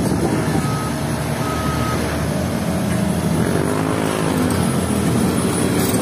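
Crawler bulldozer's diesel engine running steadily as it works a sand pile, with its reversing alarm beeping twice in the first two seconds. The engine note swells and falls back once around the middle.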